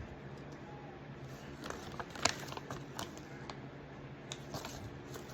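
Light handling sounds: scattered small clicks and rustles of plastic packaging and miniatures being handled, mostly in the middle, over a faint steady hum.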